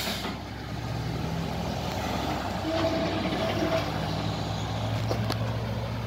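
Heavy flatbed truck's engine running at low speed as it moves slowly, a steady low hum.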